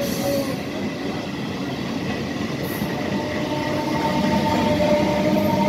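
Electric multiple unit local train running past: a steady rumble of wheels on rails. A faint steady whine joins about halfway through, and the sound grows slightly louder near the end.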